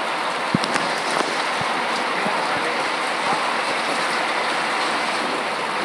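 Heavy rain falling steadily, a dense even hiss, with a few sharp taps of drops striking close by in the first second and a half.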